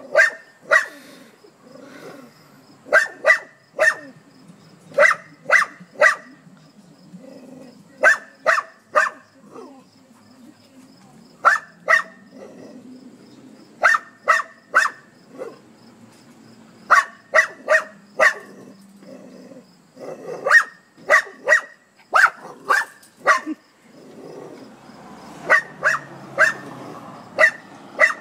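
Small dog barking at a hedgehog curled into a ball, in quick clusters of two to four sharp barks with short pauses between.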